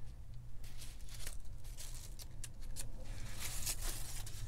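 Paper and stencils being handled: scattered soft rustles and light clicks, a little denser about three and a half seconds in, over a low steady hum.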